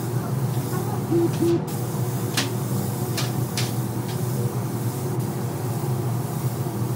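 Steady mechanical hum of paint-booth machinery, with a few short hisses of an air spray gun applying glass coating, played at double speed. Two short beeps about a second in stand out as the loudest sounds.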